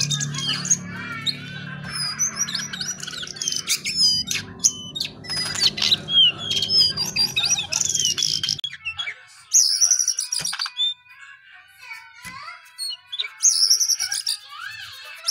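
Male jongkangan singing a run of quick chirps and whistles, with louder phrases near the end. A low background of music runs under the song and stops a little past halfway.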